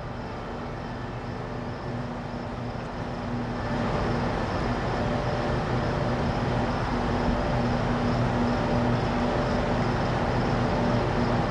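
Station-hall ambience: a steady machine hum with a few held tones under broad noise, growing louder about four seconds in.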